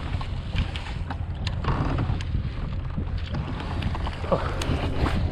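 Low wind rumble on the microphone, with scattered light clicks and knocks.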